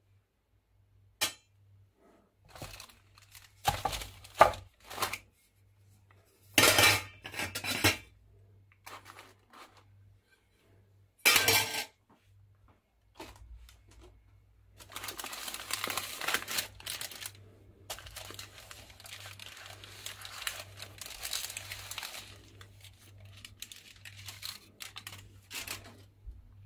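Round aluminium cake pans knocking and clinking on the table as baked almond sponge cakes are turned out of them. From about halfway through, a long stretch of parchment baking paper rustling and crinkling as it is handled and peeled from the cake layers.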